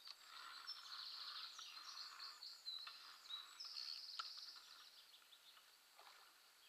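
Faint birdsong: a run of small birds' high chirps and short trills, thinning out about five seconds in.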